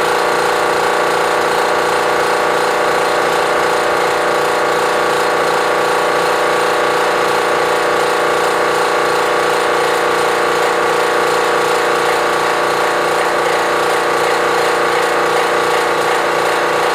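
Air compressor running steadily: a continuous loud mechanical drone with several held tones over a hissy noise, unchanging throughout.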